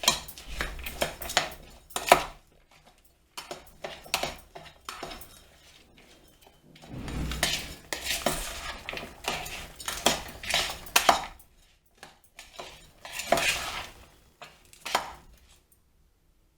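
A spoon clinking and scraping against a bowl in irregular strokes, with a few short pauses, as chopped vegetables and powdered spices are stirred together.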